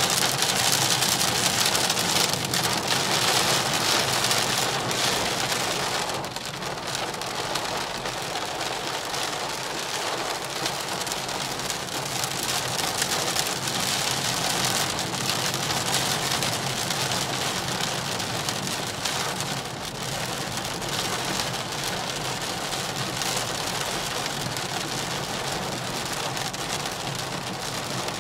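Heavy rain drumming on a car's roof and windscreen, heard from inside the cabin, with the low hum of the BMW 118i's 1.5-litre engine and road noise beneath. The rain is loudest for the first six seconds, then eases slightly.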